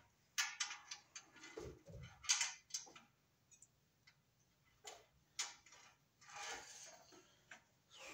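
Irregular light clicks and taps from small parts and hand tools being handled, a dozen or so spread out with gaps, and a short scraping rustle near the end.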